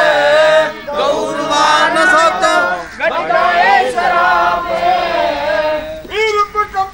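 Voices singing a devotional song in long, wavering phrases, with short breaths between phrases about a second in, near the middle and near the end.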